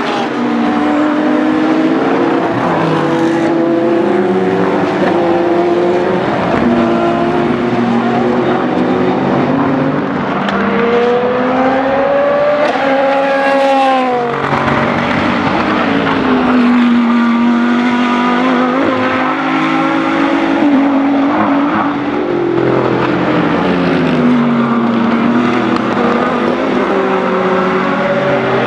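Several GT and prototype race cars driving at speed, their engine notes rising and falling as they accelerate, shift and pass one after another. About ten seconds in, one engine climbs steadily for a few seconds and then drops off sharply at an upshift or lift.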